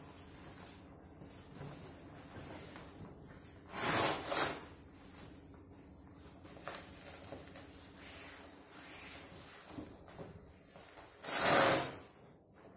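Waterproof rain-skirt fabric rustling and swishing as it is swung open and handled, with two louder rasping bursts, one about four seconds in and one near the end.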